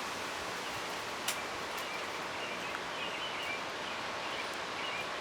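Steady gusty wind rustling through trees, an even hiss. There is a brief click about a second in and a few faint high chirps.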